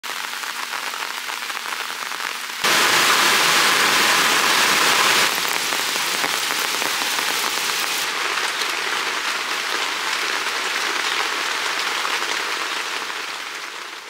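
Steady rain falling, an even hiss that swells louder for a couple of seconds from about three seconds in, then settles and fades near the end.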